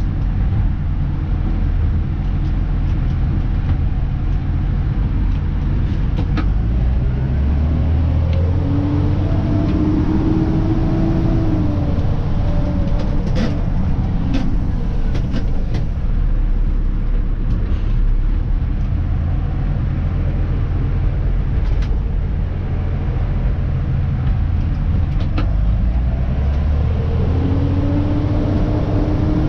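Dennis Elite 2 garbage truck's diesel engine running as heard from the cab, its pitch rising twice as it picks up speed. A few short clicks and rattles are heard along the way.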